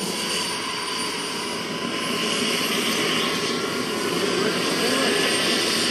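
Model gas-turbine (jet) engine running, a steady rushing noise with a faint high whine, getting a little louder about two seconds in.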